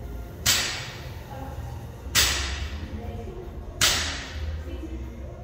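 Loaded barbell with bumper plates striking the rubber gym floor in a steady rhythm of three sharp impacts about 1.7 seconds apart, each ringing out and dying away in the hall.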